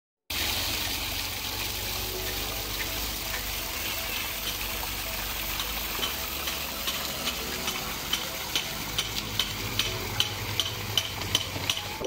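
Water from a built semi-natural rock-wall waterfall splashing steadily down over stones. About halfway through, faint regular clicks come in, two or three a second.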